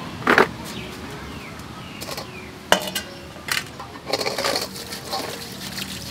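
A stainless steel bowl and woven bamboo baskets knocked and set down on concrete, three sharp clinks and knocks, then tap water starts pouring into the metal bowl about two-thirds of the way through. Faint bird chirps sound in the background.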